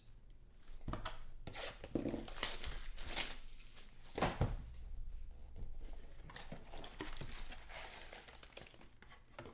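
Plastic wrap and packaging crinkling and tearing as a sealed box of trading cards is unwrapped and opened, with a few soft knocks of the box being handled.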